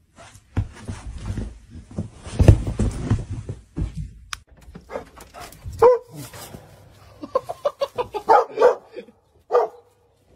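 Scuffling and dull thumps for the first few seconds, then a dog giving short barks and yelps in quick runs, with one held whine near the end.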